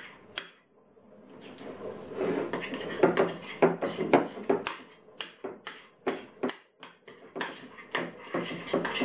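Spoon stirring and scraping a thick creamy mixture in a glass bowl, with repeated sharp clicks of the spoon against the glass. It starts about a second and a half in.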